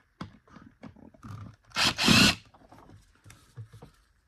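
Clicks and knocks of plastic vacuum parts and screws being handled during disassembly, with one loud harsh rasp lasting about half a second, about two seconds in.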